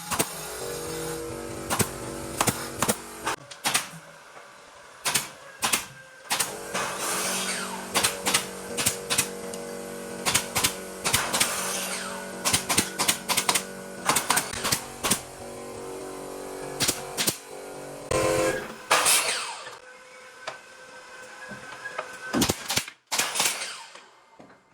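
Pneumatic nail gun firing shot after shot, sometimes in quick runs of sharp clicks, over a steady mechanical hum.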